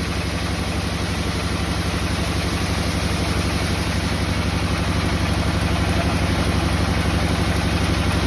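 An engine running steadily with a fast, even low chug, slowly growing louder.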